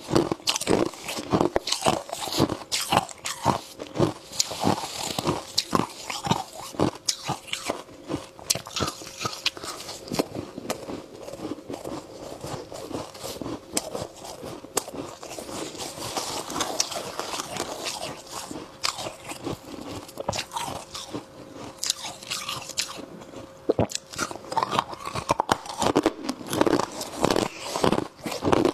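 A person biting and chewing mouthfuls of freezer frost, a dense run of crisp crunches that keeps up throughout.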